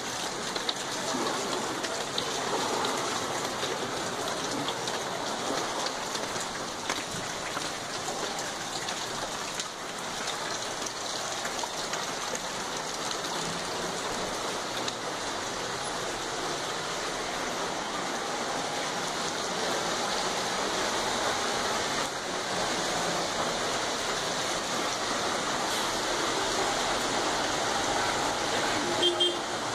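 Steady rushing of rain and floodwater running across a flooded street.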